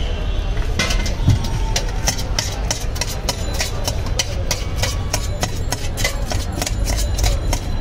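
Flat steel spoon clanking rapidly against the inside of a steel tin as jhal muri puffed rice is mixed, starting about a second in at about three or four strikes a second, over a steady low engine-like hum.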